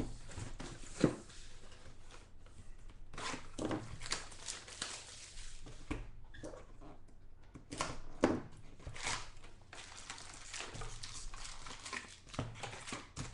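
Crinkling, rustling and tearing of trading-card packaging being handled and opened, with a sharp knock about a second in.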